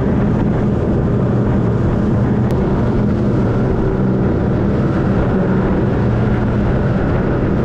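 Boat engine running steadily with a constant rushing noise over it.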